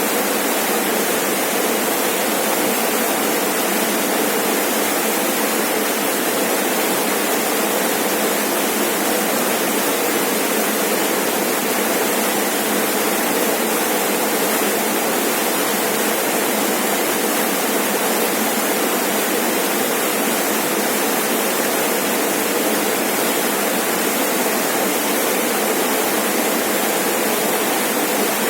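Rainforest waterfall: water falling and splashing in a steady, unbroken rush with no distinct events.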